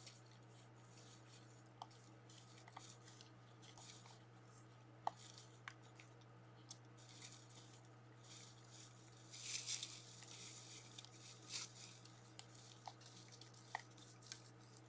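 Faint, intermittent crunching and rustling of white-tailed deer feeding on the ground among dry leaves, with a few small clicks, over a steady low hum. The crunching is loudest about ten seconds in.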